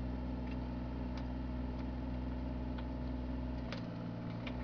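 Bobcat mini excavator's diesel engine running steadily as it digs, with a few sharp clicks and knocks of the bucket working in stony ground. Its deep hum thins briefly near the end.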